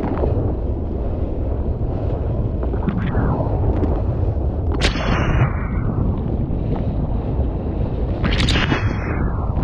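Wind buffeting the microphone on a moving boat: a heavy, steady low rumble with a few sharp gusty spikes, over the noise of the boat and the water.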